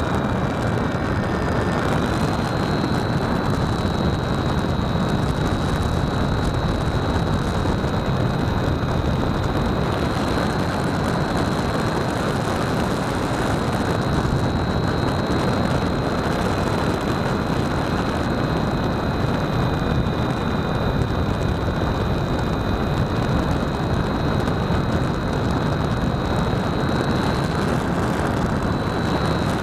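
RC airplane in flight heard from a camera on its tail plane: a steady rush of wind over the camera, with a thin high whine from the motor and propeller that wavers slightly in pitch.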